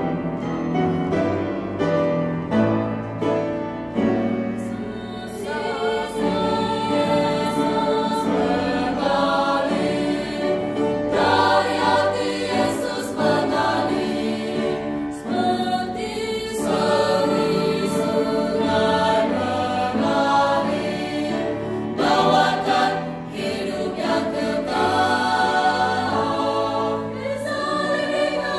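Mixed choir of women's and men's voices singing a hymn of praise.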